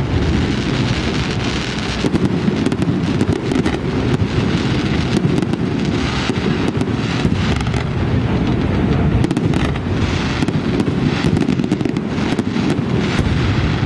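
Fireworks display going off: a dense, unbroken run of bangs and crackles over a continuous low rumble.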